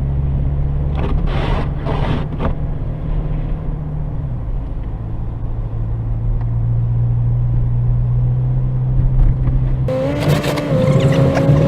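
Car driving, heard from inside the cabin: a steady low engine and road drone, with a few brief hissing noises in the first seconds and a higher whine that starts suddenly near the end.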